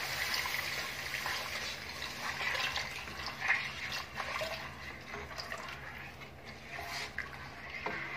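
Thick strained tomato purée pouring and splashing into a pot of roasted besan. The pouring is loudest at first and fades, while a spatula stirring in the pot gives a few sharp taps.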